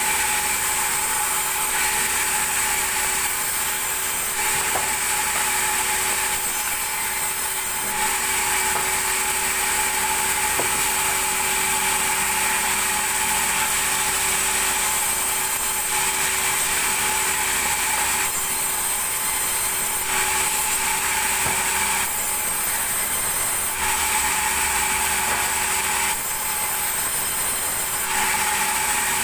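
Large vertical band saw running with a steady high whine while it rips timber into boards, the cutting hiss over the whine. The hiss drops back for a second or two several times.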